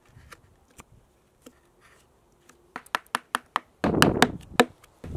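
Wooden mallet tapping a carving chisel into soft wood. Faint paring first, then from about halfway a run of sharp taps, roughly four a second, loudest near the end.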